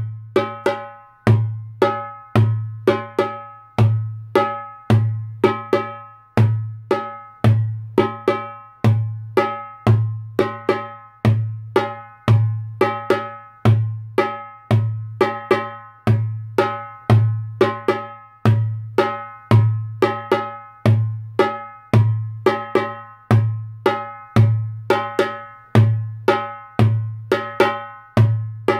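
Darbuka played by hand in the Karsilama rhythm, the basic 9-beat pattern: deep dooms and sharp teks going doom, tek, doom, tek, tek, then a one-beat pause before it loops, repeated steadily at an even tempo.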